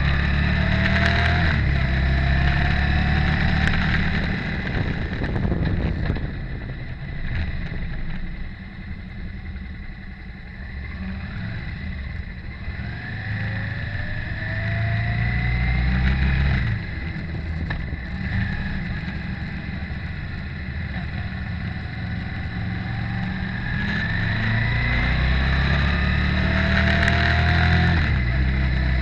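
Motorcycle engine running on the move, heard from a camera mounted on the bike. Its pitch rises several times as it accelerates, and it eases off to a quieter stretch in the first half.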